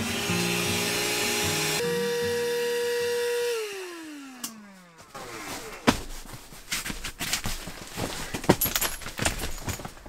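A small electric air pump running with a steady whine, then switched off about three and a half seconds in, its pitch falling as the motor winds down. After that come scattered light clicks and knocks of handling.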